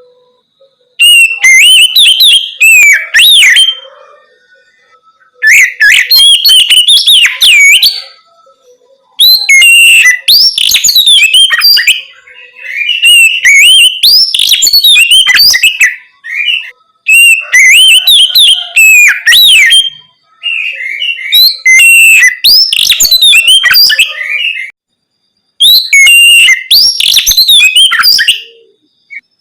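Oriental magpie-robin (kacer) singing loud, full-voiced 'ngeplong' song: about seven phrases of rapid, varied whistles and trills, each two to four seconds long, with short pauses between them.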